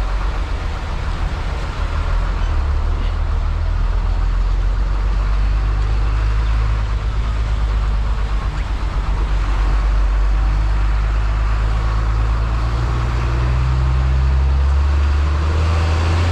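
Heavy, slow-moving road traffic: vehicle engines running with a steady low rumble.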